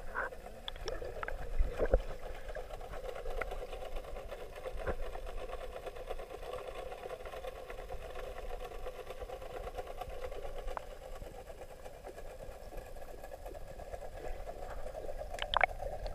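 Steady mechanical whirring of the pool's water-circulation equipment heard through the water, with a few muffled splashes near the start, about two seconds in, and near the end.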